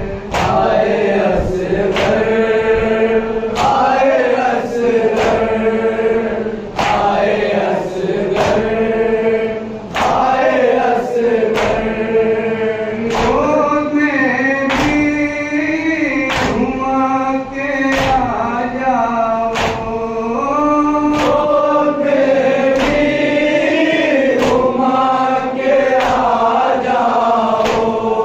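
A group of men chanting a noha, a Shia mourning lament, in unison behind a lead reciter. The chant is kept in time by a steady rhythm of sharp hand slaps on the chest (matam), about three every two seconds.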